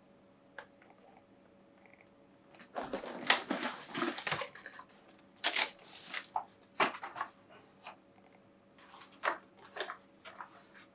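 Cardboard shoebox being opened, its lid lifted and handled with rustling and scraping in several bursts. The longest and loudest comes about three seconds in, and shorter ones follow.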